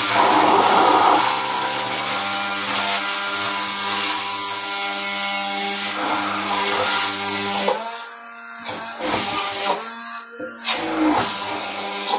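Hand-held immersion blender running steadily in a tall beaker, whipping egg and oil into mayonnaise. About eight seconds in the motor sound drops and turns quieter and uneven.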